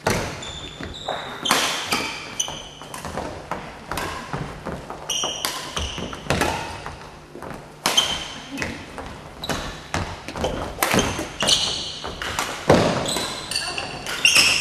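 Sharp hits and thuds at an irregular pace, mixed with short high squeaks of shoes on a gym floor, echoing in a large hall.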